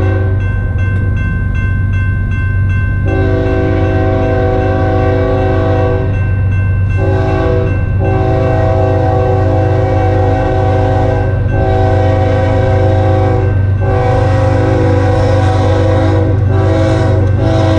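Locomotive air horn, a Nathan Airchime K5HL, sounding a series of long blasts broken by brief gaps, with one short blast about seven seconds in, as the train approaches a grade crossing. A grade-crossing bell rings steadily during the pause in the horn at the start, over a steady low rumble.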